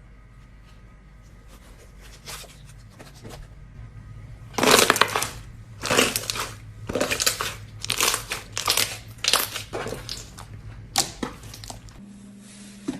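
Slime being squeezed and pressed by hand close to the microphone. After faint crackling, it gives a run of loud crunchy squishes about one a second, the first the loudest.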